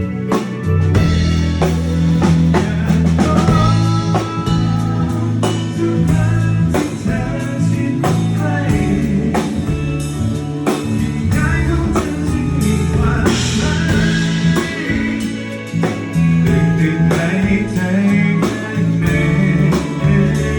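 Live band playing during a sound check: a steady drum-kit beat and bass line with a melody line on top.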